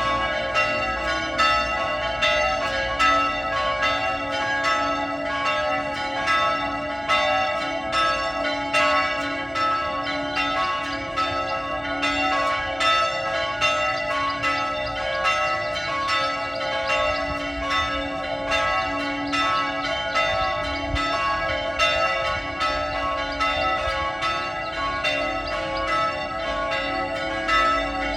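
Church bells ringing a continuous peal, strikes following one another several times a second with their ringing overlapping. The bells are rung to call people to Mass.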